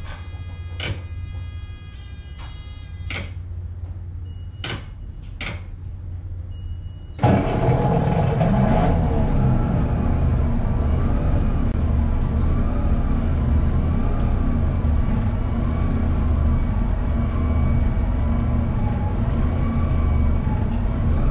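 New Flyer C40LF bus engine heard from inside the cabin, idling low and steady with a few sharp clicks. About seven seconds in, the sound jumps suddenly louder and stays up, with a wavering whine over the engine note.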